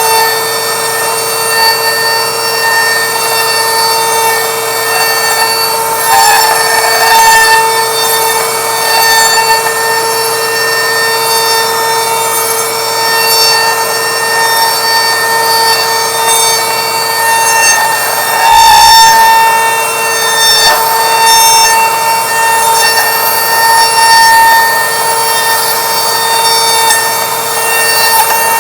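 Router on a router table running with a steady high whine while its bit cuts into a small wooden blank turned on a pin jig, the cutting noise rising and falling unevenly as the circle is shaped.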